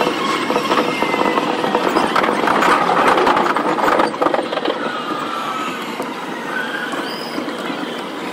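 Electric commuter train running on the Keihin-Tohoku Line, sped up four times, with dense rumbling wheel-and-rail noise. Short high wheel squeals break through several times, and the noise eases off in the second half as the train slows.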